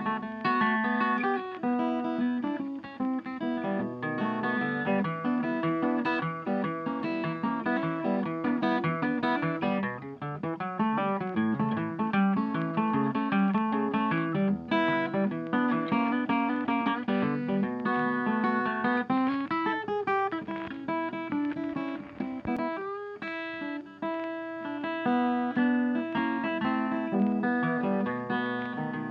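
Background music played on plucked guitar.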